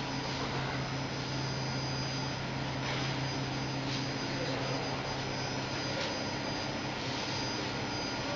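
Steady mechanical hum with a constant hiss from running workshop equipment, with a few faint light ticks.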